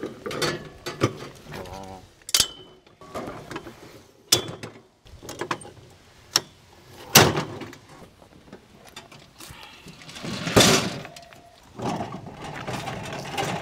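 Metal clicks, clanks and rattles of a Camp Chef portable pellet grill's folding leg stand being unfolded and locked upright, with louder clanks about seven seconds in and again near eleven seconds.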